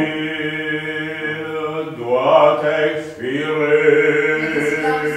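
A man's voice singing long held notes without piano accompaniment, breaking off briefly about two seconds in and again about a second later.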